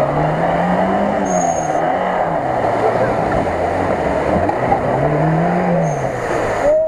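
Off-road car's engine revving hard while its wheels churn in deep mud, the revs climbing and dropping twice.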